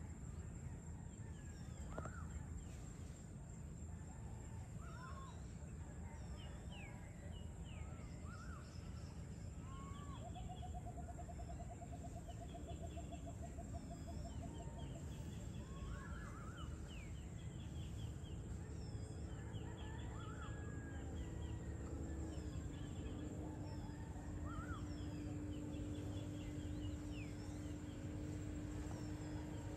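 Outdoor evening soundscape: many small birds chirping and whistling in short calls throughout over a steady low rumble, with a fast trill about a third of the way in. A steady low hum joins about two-thirds of the way through.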